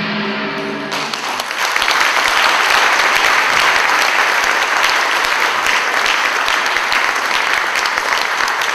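An audience applauding in a dense, steady clatter, breaking in about a second in as the music ends.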